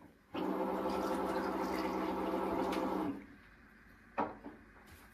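Water running for about three seconds with a steady hum under it, starting and stopping abruptly. A couple of short clicks follow about four seconds in.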